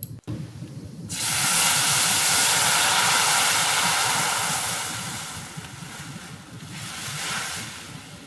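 Hot tempering oil with spice seeds and dried red chillies sizzling as liquid curry is poured onto it. The hiss starts suddenly about a second in, dies down after a few seconds, and swells briefly again near the end.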